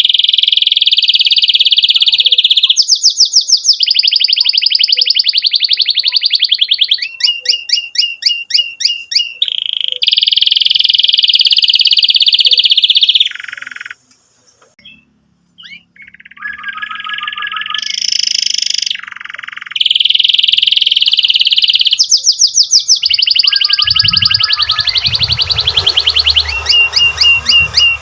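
Domestic canary singing loudly: long, fast rolling trills held near one pitch, alternating with series of rapid chirp notes, with a pause of about two seconds about halfway through. A low rumbling noise joins near the end.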